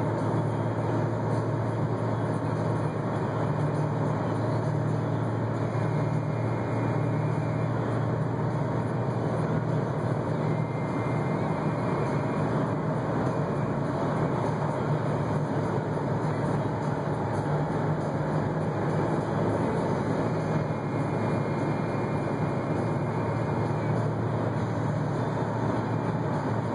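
Steady cabin noise of a Jeep Grand Cherokee with a 5.7-litre Hemi V8 cruising at highway speed, about 80 mph at around 2,000 rpm: a low engine hum under tyre and wind noise.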